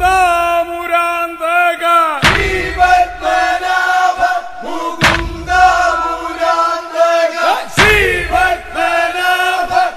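A chorus of voices chanting a vanchipattu, the Kerala snake-boat song, in long held and sliding notes, with a deep thud landing about every three seconds.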